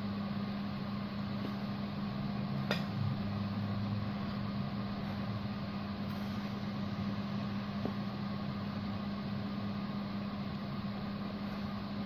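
Steady low mechanical hum with one constant tone under a soft hiss, with a single sharp click about three seconds in.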